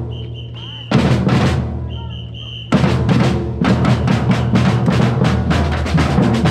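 Percussion ensemble of bass drums and snares playing, with a steady low hum underneath. A burst of drum strokes comes about a second in, a short high held tone sounds twice in the pauses around it, and from near the middle the full drum group plays a fast, dense rhythm.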